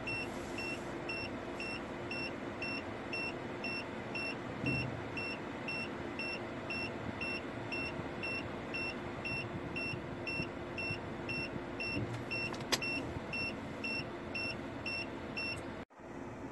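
Reversing warning beeper in a Mazda BT-50 cab, sounding short, even, high beeps a little over twice a second over a steady engine hum. The beeping stops shortly before the end, and a single sharp click comes a few seconds earlier.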